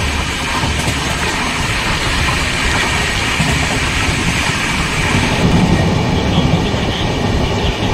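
Passenger train running at speed, heard from aboard: a steady rumble and rush of wheels on the rails, growing a little heavier in the last few seconds.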